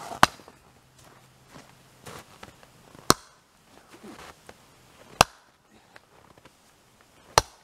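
Axe striking and splitting firewood rounds: four sharp cracks, about two seconds apart, with faint footsteps in snow between them.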